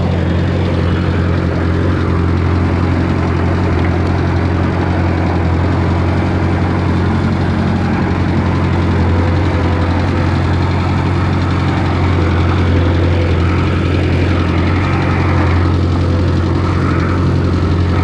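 Bobcat 753 skid-steer loader's diesel engine running steadily at close range while the loader drives about, a constant low engine hum that grows slightly louder in the second half.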